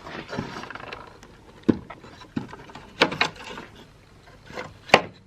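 Hand handling of the defibrillator's casing and internal parts during disassembly: rustling in the first second, then a run of sharp clicks and knocks of plastic and metal parts being moved and set down, the loudest near the end.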